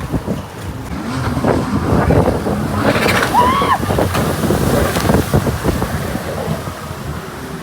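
Jet ski engine running over the water, with wind buffeting the microphone and water noise.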